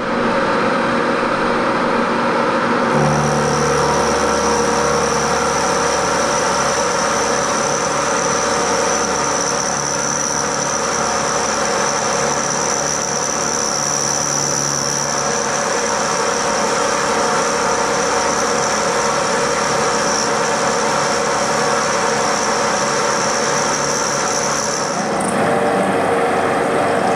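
Vertical milling machine running, its end mill cutting a slot in a round metal bar. A high steady whine and a low hum join about three seconds in and drop away near the end, where the sound shifts.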